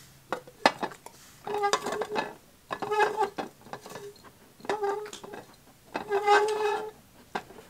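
Plastic cups being slid and shuffled across a plastic placemat: a few light knocks near the start as they are tapped and set down, then four scraping passes, each carrying a steady squeaky pitch.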